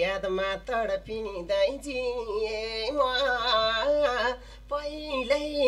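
A man singing a Nepali dohori folk song, his voice bending and wavering in pitch through each phrase, with a brief pause about four and a half seconds in.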